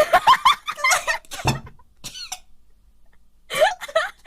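A woman's short vocal outbursts, with a cough-like burst about a second and a half in, then a brief pause before more voice sounds near the end.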